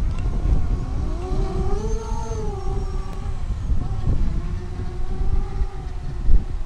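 Vortex 250 FPV racing quadcopter's motors and propellers whining as it lifts off and flies low, the pitch rising, then falling and holding lower, over a low rumble of wind on the microphone.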